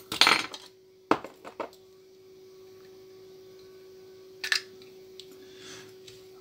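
A handful of sharp clicks and clatters as a lid is opened and small hard objects are handled on a workbench, a quick cluster at the start and single clicks after, over a steady low hum.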